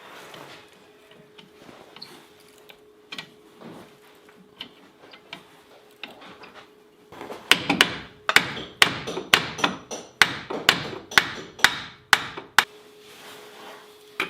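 Hammering: a few light taps and clicks, then about halfway through a quick run of a dozen or so hard hammer blows, two to three a second, that stop abruptly.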